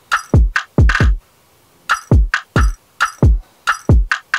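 Programmed drum loop playing: deep electronic kicks that drop in pitch, laid over crisp hi-hat-like ticks in a quick, syncopated pattern. The pattern breaks off for about a second, about a second in, then carries on.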